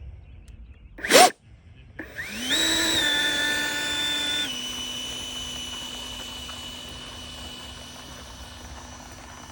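A brief loud knock about a second in, then the 70mm electric ducted fan of a Freewing F-22 Raptor RC jet spools up with a rising whine and holds a steady whine. About four and a half seconds in it drops to a slightly lower steady pitch that carries on.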